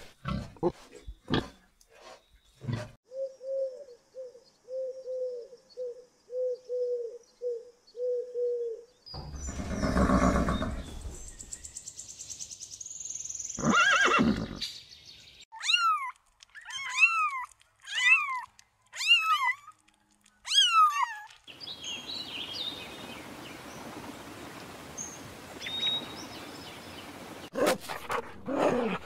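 A run of farm-animal sounds. First a pig grunts, repeatedly and evenly for several seconds. Then a horse gives a loud breathy snort and a string of about six short high calls, and a dog growls near the end.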